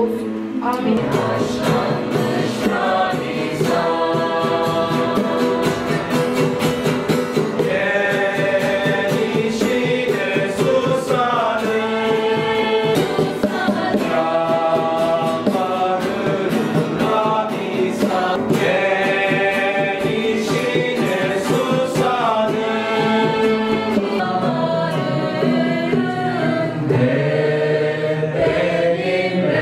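A congregation singing a worship song together, accompanied by strummed acoustic guitars.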